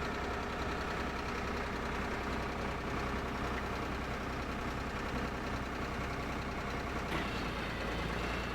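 Drill rig's engine running steadily.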